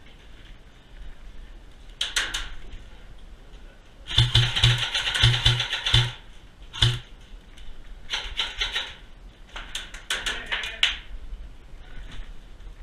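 JG M4A1 airsoft electric gun (AEG) firing single shots at close range. There is a quick run of about five or six shots, each a sharp crack with a low thump, then one more shot about a second later. Shorter bursts of clattering come before and after.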